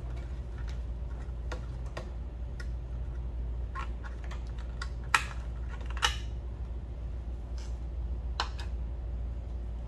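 Light plastic clicks and taps from a car's corner marker light being handled as the lamp housing comes off its fender clips and the bulb socket is twisted out. Two sharper clicks a second apart about halfway through. A steady low hum underneath.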